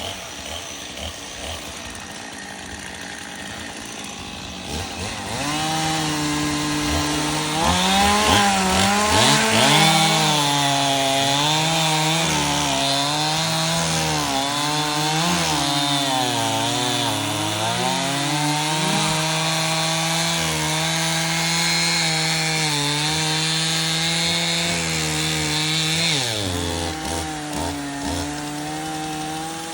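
Two-stroke chainsaw cutting through a log at full throttle, the engine pitch dipping and recovering as the chain bites under load. It starts about five seconds in and the engine drops off near the end.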